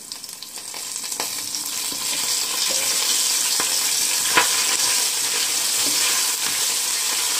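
Fresh curry leaves sizzling in hot oil in a stainless steel pan, a tempering for chutney: the sizzle grows louder over the first couple of seconds and then holds steady. A wooden spatula stirs through it, with a couple of sharp clicks.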